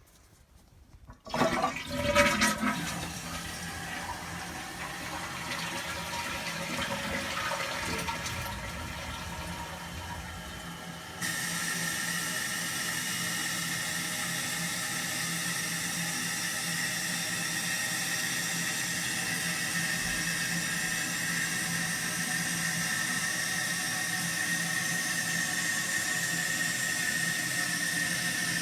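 Toilet flushing about a second in, with water rushing down and draining from the tank. From about eleven seconds the old, worn fill valve refills the tank with a loud steady hiss and a high whistle, loud enough to read about 75 decibels on a meter.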